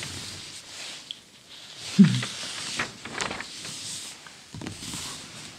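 Pages of a 1940 Good Housekeeping magazine being turned by hand: paper rustling and swishing, with a soft thump about two seconds in as the page is laid down.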